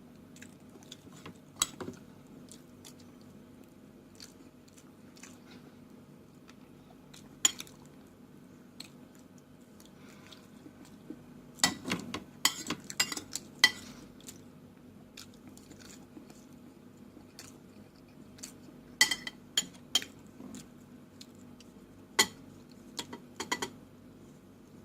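Close-up eating sounds: chewing with sharp clicks of cutlery against a plate, a flurry of them about halfway through and a few more near the end, over a low steady hum.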